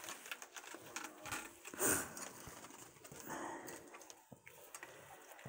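Kittens playing with a headband hung on a scratching post: scattered light taps and rustles, with a louder rustling burst about two seconds in.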